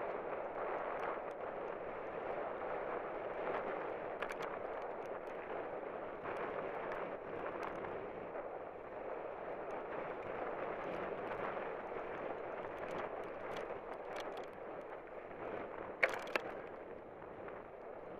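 A 2011 Cannondale Jekyll mountain bike ridden fast down rough rocky singletrack: a steady rush of wind and tyre noise, with frequent small clicks and rattles as the bike hits rocks. There is a sharper knock about sixteen seconds in.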